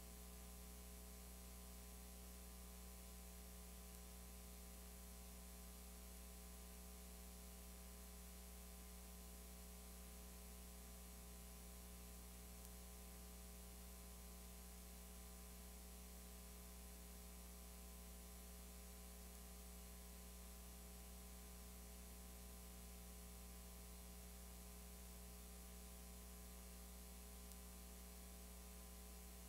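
Near silence: a faint, steady electrical hum with a stack of even overtones over low hiss, the sound of a blank, signal-less recording.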